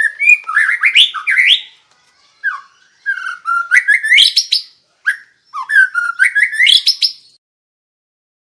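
White-rumped shama singing: loud, varied whistled phrases, several sweeping steeply upward, delivered in three bursts with short breaks between them.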